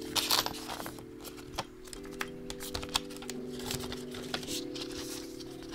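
A run of light, quick clicks and taps, over soft background music with sustained chords that change every second or two.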